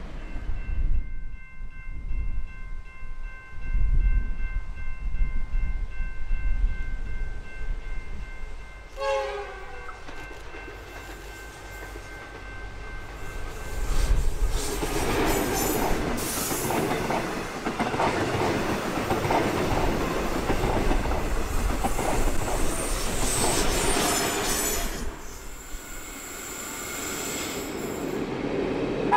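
Victorian Railways T class diesel-electric locomotives running past with a train: diesel engine rumble and wheels running on the rails, loudest through the middle. A locomotive horn holds a steady chord for several seconds near the start.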